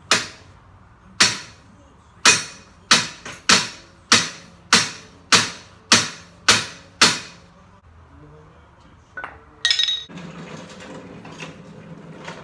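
Hammer blows on a steel tube frame: about eleven sharp, ringing strikes, settling into roughly one every 0.6 s, driving new square tubing pieces together. A couple of seconds later a short metallic clatter, then a steady low hum.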